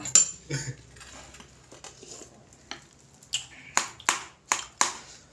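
Metal spoon clinking and scraping against a ceramic bowl of rice: a run of sharp clicks, most of them close together in the second half.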